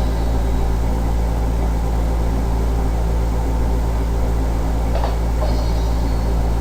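Steady low electrical hum with a noise haze over it, unchanging in level, and a faint short sound about five seconds in.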